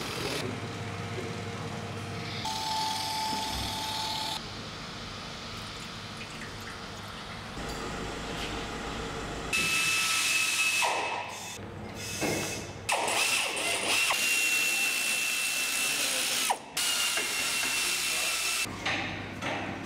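Workshop machinery and tool noise in a string of short cut-together clips: mechanical clatter that changes abruptly every few seconds, with a steady high machine whine for several seconds around the middle.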